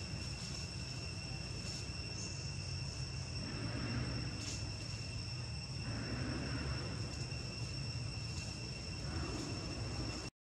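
Insects droning steadily in the forest, a constant high whine on two pitches over a low rumble, with a few short swells of hiss. The sound cuts out abruptly near the end.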